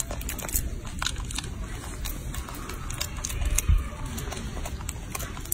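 Two young macaques biting and chewing a soft peeled banana: a run of quick, irregular wet clicks and smacks over a low rumble, with one dull thump about three and a half seconds in.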